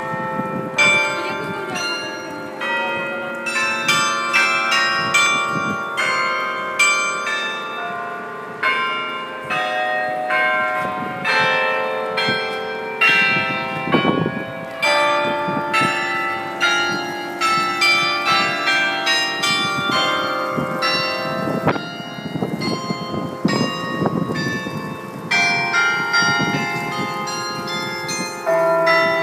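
St. Nikolai Memorial carillon playing a tune: many bronze bells struck one after another, several notes a second, their tones ringing on and overlapping.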